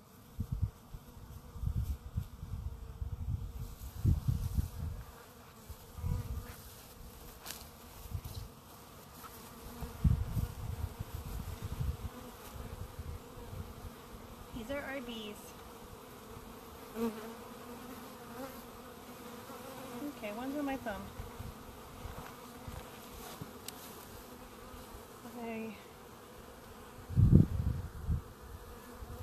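Honeybees buzzing around their hives in a steady low hum. Short low rumbles come and go on the microphone every few seconds, the biggest near the end.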